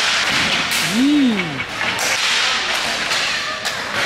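Inline hockey play in a sports hall: sharp clacks of sticks striking the puck and each other over the hiss of skate wheels on the floor. A single voice calls out about a second in, its pitch rising and then falling.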